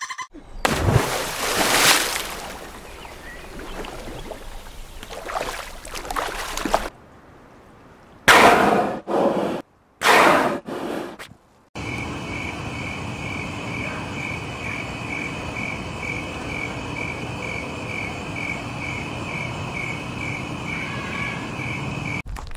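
Night insect chorus: a steady hiss with a high cricket-like chirp repeating about twice a second, from about twelve seconds in. Before that come several loud, irregular noisy sounds broken by short silences.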